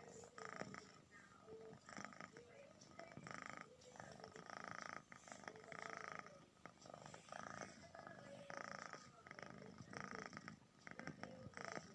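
Domestic cat snoring softly, a faint rasp with each breath, repeating about every second and a half.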